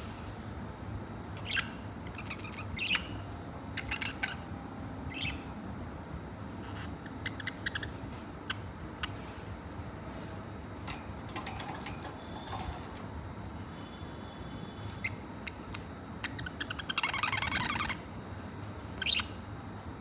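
Pet budgerigars chirping: scattered short chirps and squawks, a burst of rapid warbling chatter about three-quarters of the way in, and one sharp, loud call near the end.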